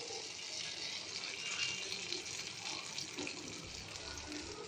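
Whole cumin seeds sizzling in hot oil in a frying pan, a steady even hiss: the cumin tempering (jeera phoron) frying.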